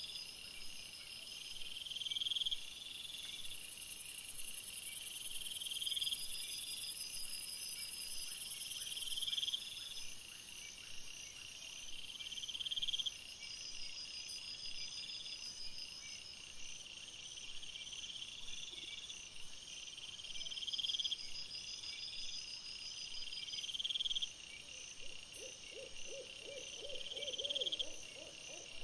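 Night-time outdoor ambience: a high steady insect trill with pulsing chirps, and a short rising call repeated about every two seconds. A rapid series of lower pulsed notes comes in near the end.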